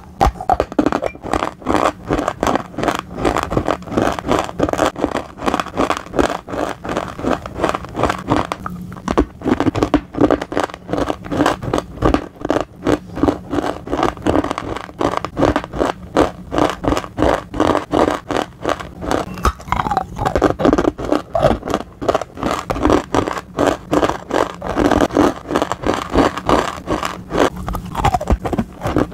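Dry slate being bitten and chewed up close: a steady run of gritty crunches and grinding between the teeth, several a second.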